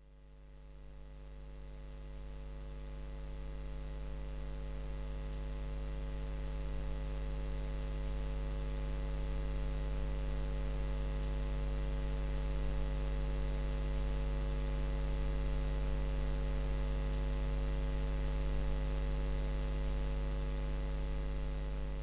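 Steady electrical mains hum: a low drone with several steady overtones and light hiss, fading in over the first few seconds and then holding level.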